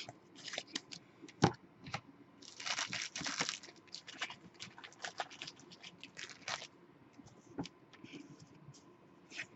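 Trading cards being handled and slid against one another: light scraping and rustling with scattered clicks. The longest scrape comes about two and a half seconds in and lasts about a second.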